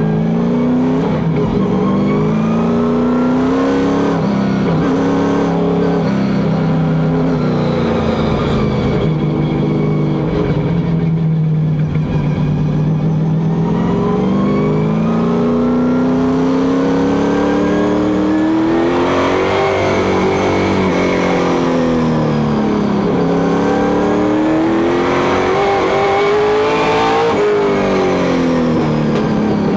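Stock car's engine heard from inside the cockpit at racing speed. It runs loud and steady, its revs climbing and falling several times as the car laps the oval.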